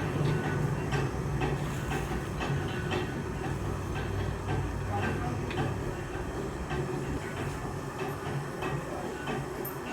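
Workshop machine running with a steady low hum and a regular clack about twice a second.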